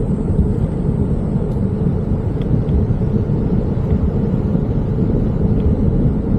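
Wind buffeting the microphone of a bicycle coasting downhill: a steady, loud, low rumble.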